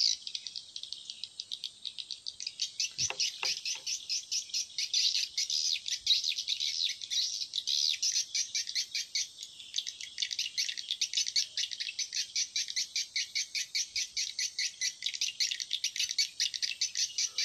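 Continuous rapid, high-pitched chirping from a small animal, an even pulsing that never pauses, with a couple of faint soft knocks about three seconds in.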